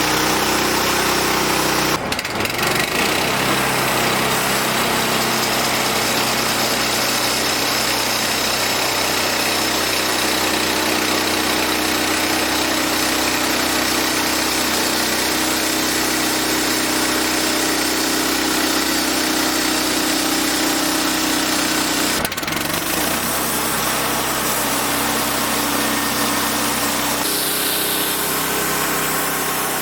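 Small petrol engine of a portable bandsaw sawmill running steadily while the band blade saws through wood, with a dense hiss over the engine hum. The sound breaks off abruptly and resumes twice, about two seconds in and again about twenty-two seconds in.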